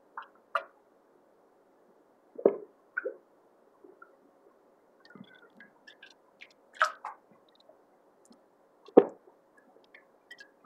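A person swallowing a drink and smacking their lips while tasting it: about six short, separate mouth sounds, the loudest about nine seconds in.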